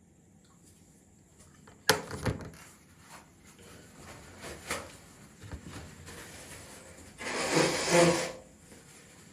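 A sharp knock about two seconds in, then scattered small knocks and rubbing, then a person's sneeze near the end: a loud, noisy burst about a second long.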